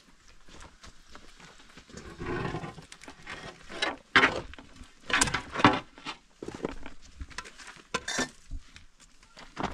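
A wooden board being moved and things handled against a block-built bread oven: scraping and several sharp knocks and clatters, with a short rough sound about two seconds in.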